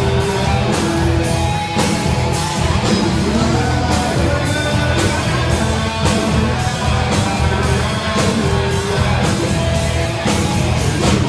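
Live rock band playing: a drum kit keeping a steady beat under electric guitar, at full band volume.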